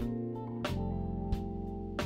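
Background music: guitar notes over a steady beat.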